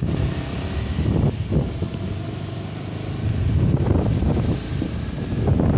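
Motorcycle engine running while riding, with wind buffeting the microphone.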